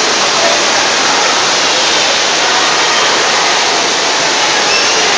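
Steady rush of splashing water from a splash pad's spray jets and fountains pouring into shallow water.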